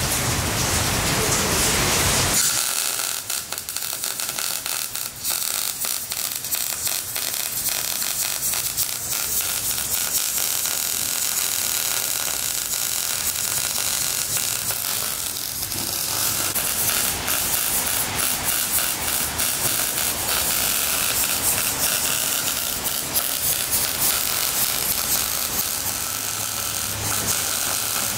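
MIG welding on steel plate: the arc hisses steadily for about the first two seconds, then crackles and sputters with dense rapid pops as the bead is laid.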